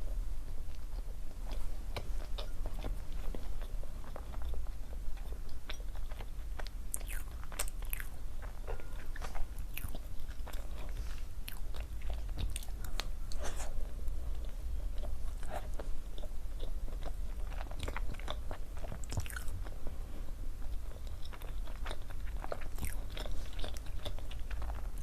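Close-up mouth sounds of a person chewing and biting food, with many small irregular wet clicks and an occasional crunch, over a steady low hum.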